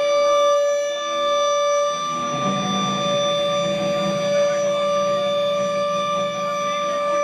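A live band's amplified drone: one steady, unwavering note sustained throughout, with a lower held note joining about two and a half seconds in.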